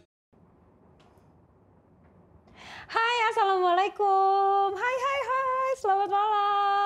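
Faint room tone, then about three seconds in a woman's voice sings a short phrase of long, held notes.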